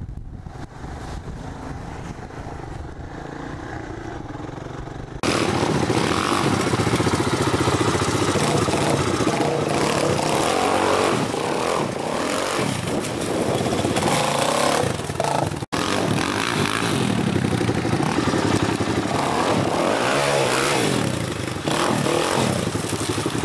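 Arctic Cat DVX 400 quad's single-cylinder four-stroke engine revving hard, rising and falling in pitch as it is ridden, with a split-second gap about two-thirds of the way through. In the first few seconds, quieter than what follows, a Honda 250SX three-wheeler's engine runs while it splashes through a shallow creek.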